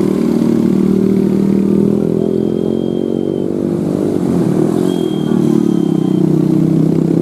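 Large diesel bus engine running loudly as it passes, its drone shifting in pitch about halfway through. A thin, high whistle sounds twice on top, each about a second long.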